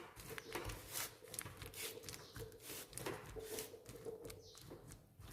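Faint, irregular taps and scrapes as a crumbly biscuit-and-butter base is pressed and packed down into a lined tart tin.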